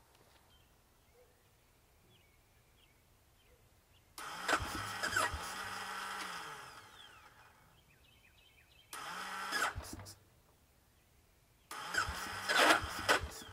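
Electric starter cranking the 2001 Bombardier Traxter 500's single-cylinder four-stroke engine in three bursts, the first the longest, with sharp pops among the cranking. The engine is being cranked on starting fluid sprayed into the carburetor throat, trying to get it to fire.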